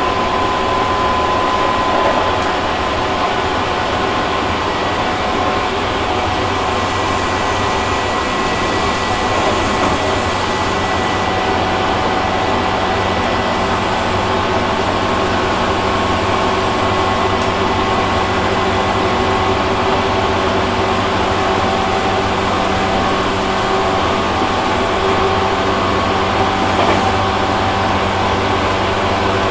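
Interior running sound of a Tobu 6050-series electric train, heard in a motor car near the cab: a steady rumble with the even whine of the TM-63 traction motors and gearing, and the car's air conditioning running. A brief extra hiss comes in between about 7 and 11 seconds in.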